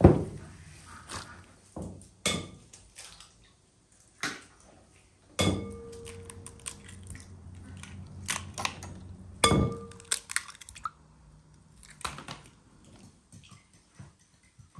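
Kitchen handling sounds around a glass mixing bowl: a series of sharp knocks and clinks as eggs are cracked into it, two of the knocks leaving the glass ringing briefly.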